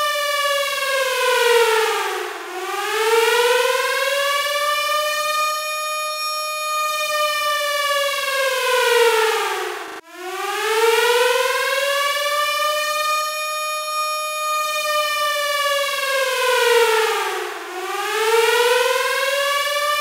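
Air-raid siren wailing, its pitch sinking low and climbing back up three times, about every seven or eight seconds. Near the middle the sound drops out for an instant and restarts from the low point.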